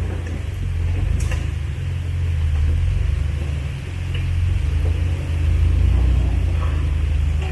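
Low rumble of an off-road vehicle's engine, swelling and easing a few times.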